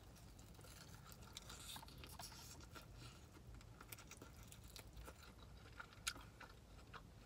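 Faint close-up eating sounds: biting into and chewing a bone-in chicken wing, with small crunches and mouth clicks and one sharper click about six seconds in.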